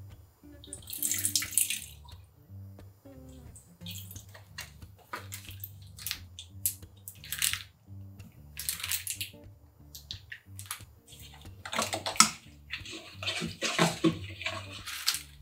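Liquid seasonings poured and splashing into stainless steel mixing bowls in several short pours, then a wooden spoon stirring a wet chili-powder mixture in a steel bowl near the end.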